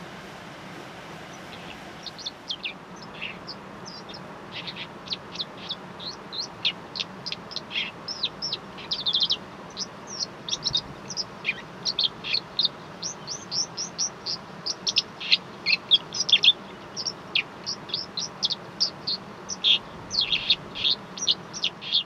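Small songbirds chirping: many short, high calls in quick, irregular succession, starting about two seconds in and growing busier, over a steady background hiss.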